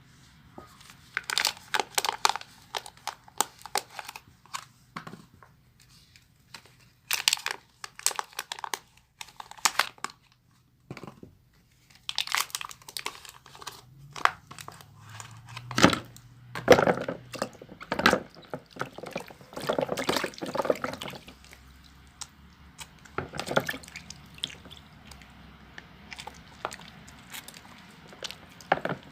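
A wet bar of baby soap being lathered: squishing, wet rubbing and crackling foam in irregular bursts of a second or two, with short pauses between.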